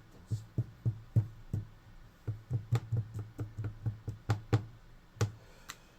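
Hand-played percussion: quick, uneven knocks and taps, about three or four a second, each with a low thud under a sharp click. They stop about five seconds in, apart from a couple of faint clicks near the end.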